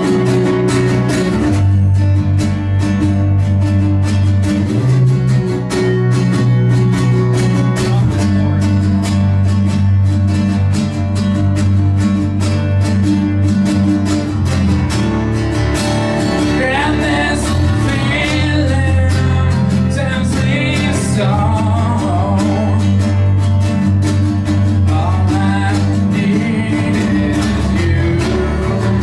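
A small band playing an acoustic grunge song live: strummed guitars over deep, sustained bass notes. A voice sings over them in the second half.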